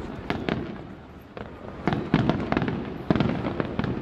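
Aerial fireworks shells bursting in a series of irregular bangs with low rumble. There is a short lull about a second in, then denser clusters of bangs.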